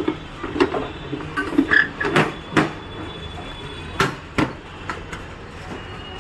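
A series of sharp knocks and clatters over a steady low hum, the loudest about two, two and a half, and four seconds in. These are parts of an electric scooter being handled as its rear cover is bolted back on.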